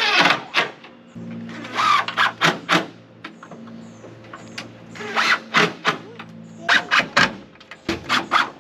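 Cordless drill driving screws through corrugated plastic roof panels into wooden rafters: short runs of the drill with clusters of sharp clicks and cracks, repeated every second or two.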